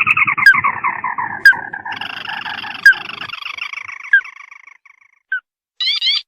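Lure call of the sintar mata merah bird: a long, rapid chattering call that falls in pitch and fades out over about five seconds, with single sharp rising notes about once a second. A quick run of three rising notes comes near the end.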